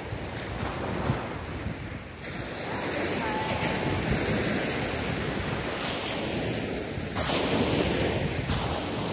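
Small waves breaking and washing up a sand-and-pebble shore, with wind buffeting the microphone; the noise swells louder for a moment about seven seconds in.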